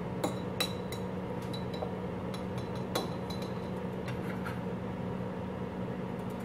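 Metal spoon lightly clinking and scraping inside a glass jar, a scattering of small ticks, over a low steady hum.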